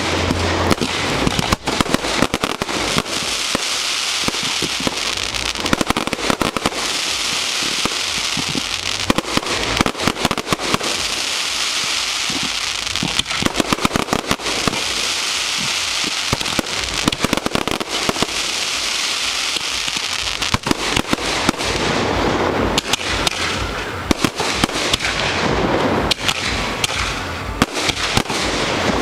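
Fireworks display heard at close range: aerial shells bursting and crackling in a rapid, continuous barrage of bangs and pops over a dense crackling hiss.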